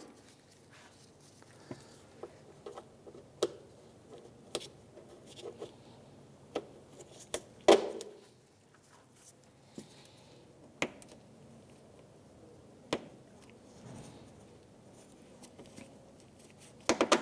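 Scattered clicks and taps of plastic push-pin clips being pressed into a plastic engine-bay panel and intake tube, with one louder knock about eight seconds in.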